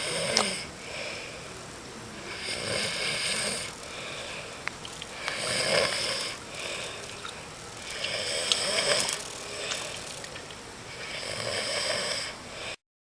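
Snoring in slow, regular breaths, a loud snore about every three seconds, five in all. It cuts off suddenly near the end.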